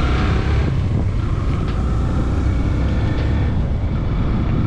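Motorcycle riding along at steady speed: the engine runs evenly, with a faint steady whine, under heavy wind rumble on the microphone.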